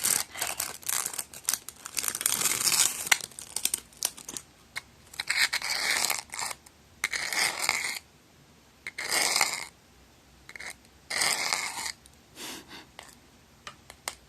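Plastic wrapper of a rice-cracker snack crinkling and tearing close to the microphone, in a string of short bursts with pauses between them.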